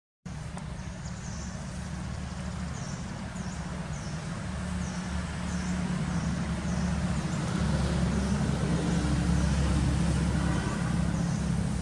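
Low hum of a motor vehicle's engine that grows louder through the second half, with a high chirp repeating about every half second above it.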